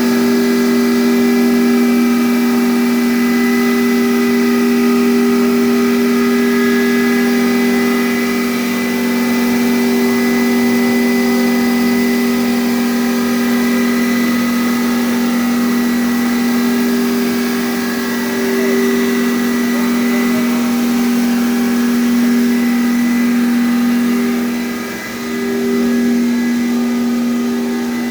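Hammer mill pulveriser running steadily: a constant hum over a rushing noise, with a brief dip in level near the end.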